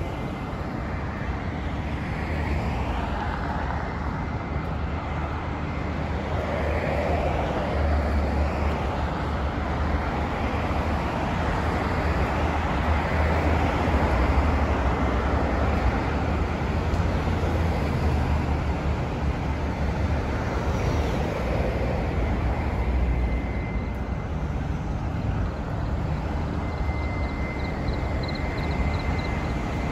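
Steady rumble of city road traffic, cars and buses passing on a multi-lane road, a little louder through the middle.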